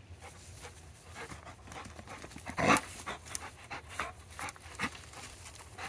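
Labrador retriever puppies panting in short, irregular breaths, with one brief louder sound about two and a half seconds in.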